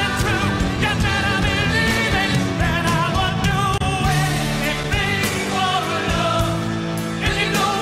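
A recorded song: a singer's voice with vibrato over a band with drums.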